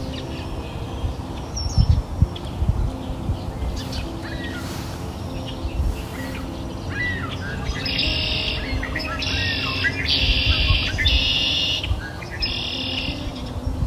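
Birdsong over soft background music: scattered chirps, then a run of bright, repeated trilling calls with quick chirping notes in the second half, over low held notes.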